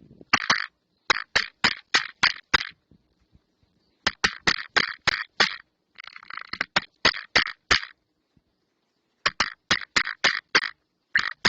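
A bird pecking and striking at a security camera's housing: runs of sharp taps, about five a second, broken by short pauses, with a brief scraping flutter about six seconds in.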